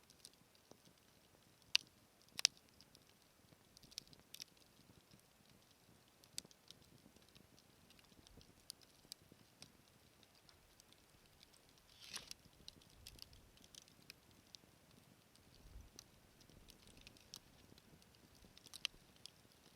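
Wood fire crackling, with scattered sharp pops at uneven intervals; the two loudest pops come about two seconds in.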